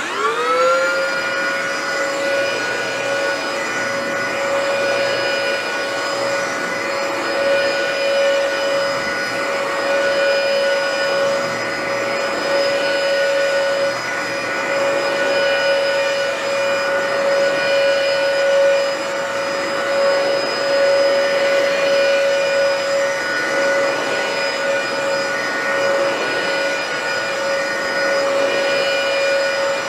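Dyson vacuum cleaner switched on in carpet mode: its motor spins up with a quick rising whine, then runs steadily with a high whine over a rushing hiss while it goes over a rug.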